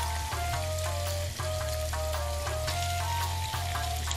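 Background music, a simple melody over a steady bass, over tofu sizzling in hot oil in a frying pan.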